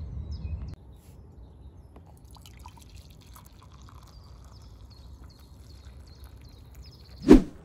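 Coffee poured into a ceramic mug, with a run of small high-pitched drips and trickles. A brief louder sound breaks in near the end.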